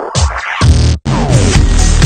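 Loud electronic dubstep-style music, chopped into short hits, with a falling pitch sweep and a deep bass about a second in.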